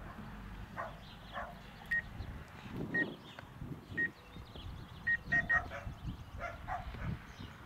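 A dog barking repeatedly with short, irregular barks, and a drone remote controller's obstacle-warning beep sounding about once a second, then three times in quick succession a little past halfway, warning that the drone is close to a tree.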